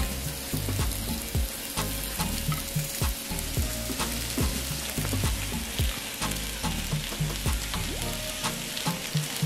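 Grilled salmon fillets sizzling on the still-hot plates of a double-sided contact grill: a steady hiss with many small crackles.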